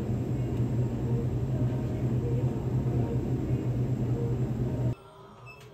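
Steady low hum and background noise of a grocery store, cutting off abruptly about five seconds in.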